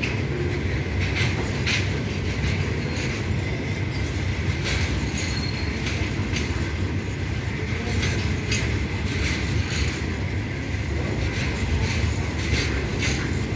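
Freight train of open-top wagons rolling steadily past: a continuous low rumble of steel wheels on rail, broken by irregular clicks and clunks as the wheels cross rail joints.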